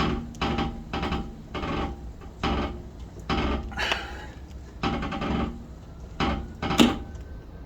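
Factory scissor jack being cranked by hand to lift the car, a short rasping metal stroke with each turn, about one every three-quarters of a second.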